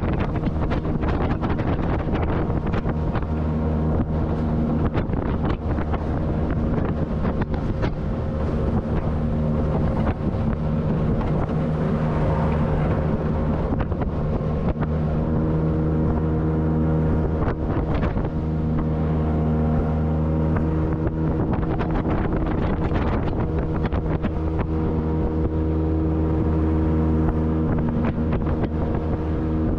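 Outboard motor of a small polyethylene jetboat running steadily under way, with wind noise on the microphone.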